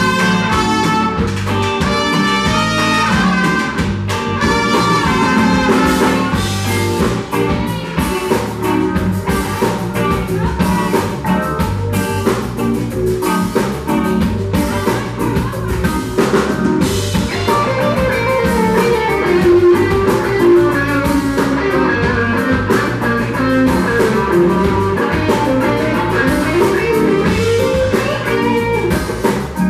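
Live band with drum kit and electric guitar: two trumpets play together at first, and in the later part an electric guitar takes a solo with bent notes over the drums.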